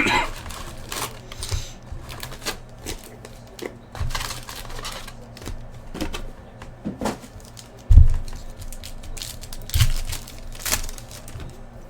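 Hands opening a trading-card hobby box and its packs: crinkling and tearing of wrappers with many small clicks as the cards are handled, and a dull thump about eight seconds in.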